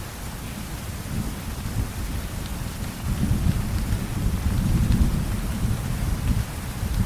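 Steady rain with a low rumble of distant thunder that swells about halfway through and slowly ebbs.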